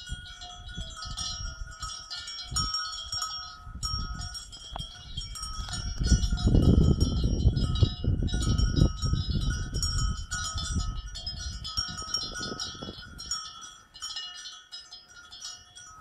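Several cowbells on grazing cattle clanking irregularly, each bell ringing at its own pitch. Under them runs a low rumble, loudest between about six and ten seconds in.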